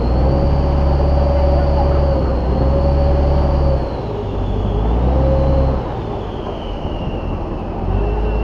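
A river boat's engine running under way, with a low hum and a high whine, over water rushing and splashing along the hull. The engine sound drops about four seconds in, and again for a couple of seconds near the end.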